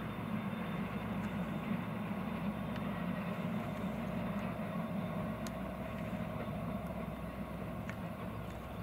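Diesel locomotive hauling a Talgo passenger train, heard from afar: a steady low engine drone.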